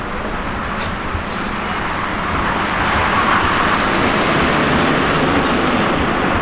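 Road traffic noise, swelling louder from about halfway through.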